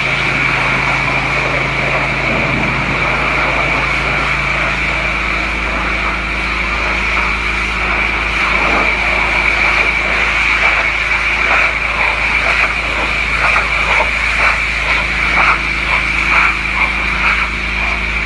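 Pressure washer running: a steady high hiss of the spray over a low steady hum, with uneven spattering in the second half as the jet works across a surface.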